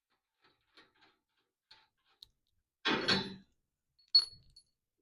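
Metal parts being handled on a workbench: a few light clicks, a half-second clatter about three seconds in, then a single sharp metal clank that rings briefly near the end.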